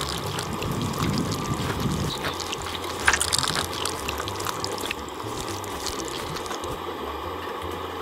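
Pork sausage fat sizzling and crackling in a frying pan on a camp stove as raw eggs are cracked into it, with a sharper knock about three seconds in.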